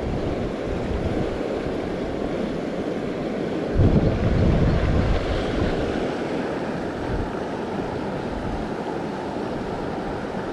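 Fast-running creek water rushing steadily, with wind buffeting the microphone, heaviest about four seconds in.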